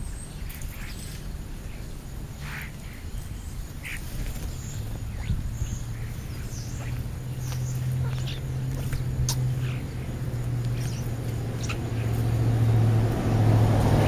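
Short, scattered chirps and calls from European starlings and house sparrows feeding on the ground. From about a third of the way in, a low steady hum builds and grows louder near the end.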